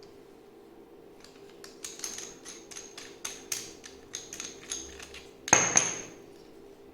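GoPro accessories and plastic mounts being handled: a run of small sharp clicks and taps, then a louder clatter with a brief ringing about five and a half seconds in.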